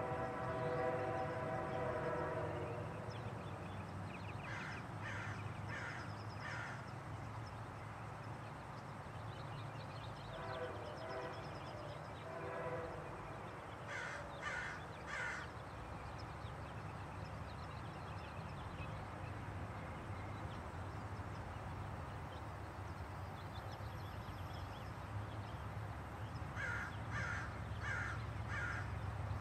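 A train horn chord sounds at the start and dies away within a couple of seconds. After that, crows caw in runs of three or four calls, several times, over a steady low rumble.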